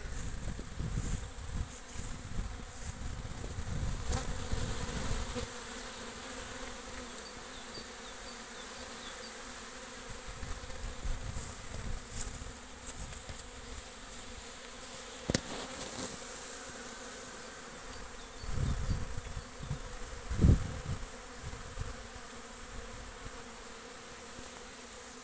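Honeybees buzzing in flight around the hive entrances: a steady hum of many bees out on their first spring cleansing flight. A few low rumbles come in places, with a single thump about twenty seconds in.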